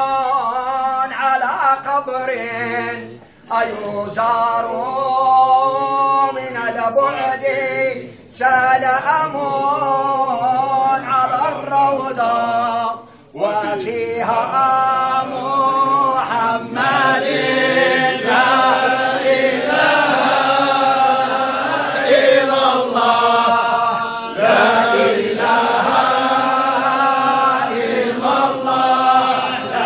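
A group of men chanting a devotional hymn in Arabic praising the Prophet, sung without instruments in long drawn-out phrases. There are short breaks between phrases in the first half, and the singing grows fuller from a little past the middle.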